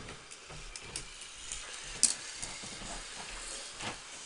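A marble rolling along a red plastic marble-run track: a steady rolling hiss with scattered light clicks, and one sharp click about two seconds in.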